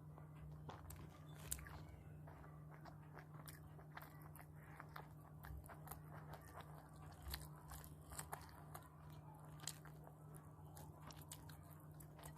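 Close-up eating sounds: chewing and biting, with frequent small crunches and clicks, over a steady low hum.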